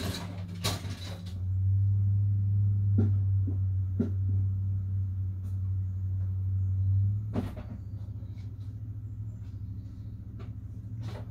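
Scattered knocks and clatters of wooden and household items being moved and set down in a small wooden shed, over a steady low hum that eases off about seven seconds in.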